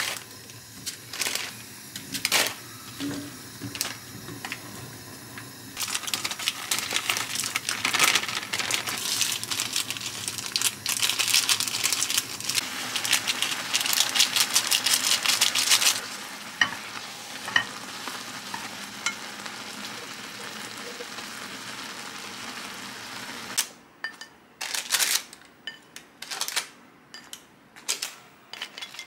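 Chapagetti instant noodles cooking in a pot with little water, a dense crackling sizzle as the seasoning powder goes in and is stirred, loudest through the middle stretch and then quieter and steadier. Near the end come a few separate sharp clicks and knocks.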